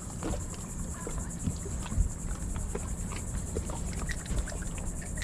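A steady, high insect trill drones without a break, over a low rumble, with scattered light clicks and one louder knock about two seconds in.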